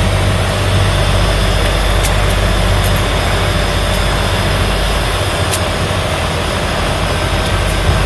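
Cessna Grand Caravan's Pratt & Whitney PT6A turboprop engine and propeller running steadily while the aircraft taxis, heard from inside the cockpit as a loud, even drone with a low hum underneath.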